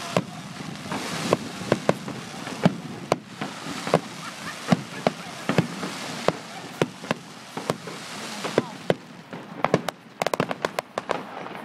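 Fireworks display: many sharp bangs and cracks over a steady hiss, with a quick run of crackling about ten seconds in.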